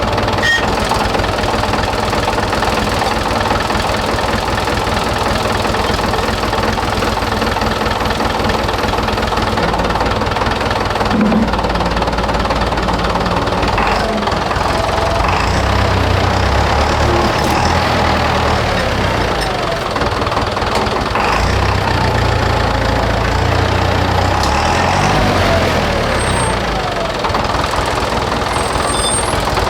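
Tractor engine running steadily, its revs rising and falling through the middle stretch as it takes up the strain of pulling on a stable wall.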